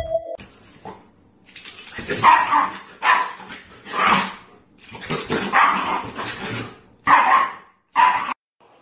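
Shiba Inu barking repeatedly in play while tugging at a toy, about six barks and yaps, some short and some drawn out.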